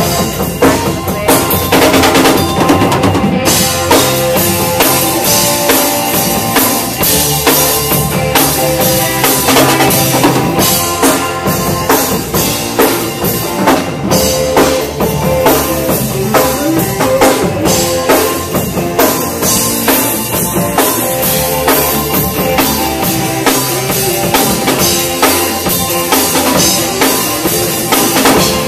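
Loud band music with a drum kit prominent: kick drum, snare and rimshots over instruments holding pitched notes, playing without a break.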